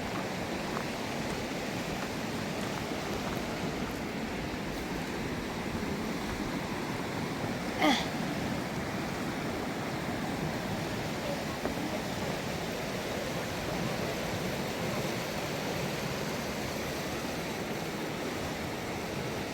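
River water rushing steadily over rocks, with one brief sharp sound about eight seconds in.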